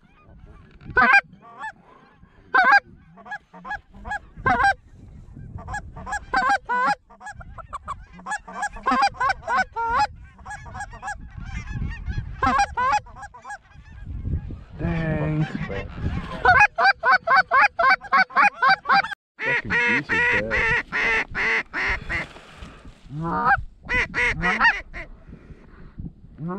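A flock of geese honking overhead: many short, repeated calls, thickest in the second half.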